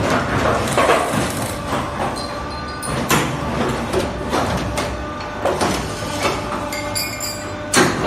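Automatic double-hook wire-forming machine running: a steady mechanical hum with sharp metallic clacks roughly once a second.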